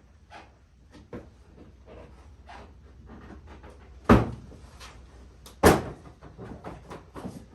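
Small clicks and rattles of tools and parts being handled while an ATV is taken apart, with two loud sharp knocks about four and five and a half seconds in.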